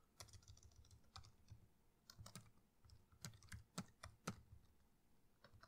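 Faint, irregular keystrokes on a computer keyboard: typing.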